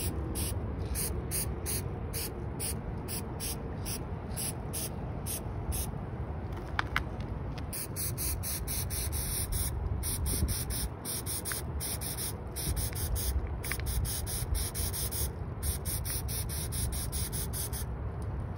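Aerosol spray paint can hissing in quick short bursts, about two or three a second, then in longer strokes with brief breaks from about halfway through.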